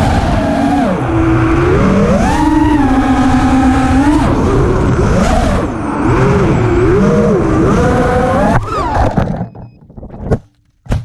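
FPV quadcopter motors whining, their pitch rising and falling with the throttle, heard from the onboard camera. About eight and a half seconds in the motors cut out, and a few short knocks follow as the quad comes down.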